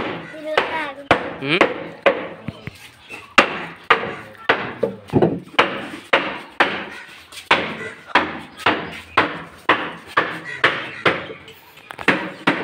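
Hammer blows on a wooden loudspeaker cabinet being built, a steady run of sharp strikes about two a second.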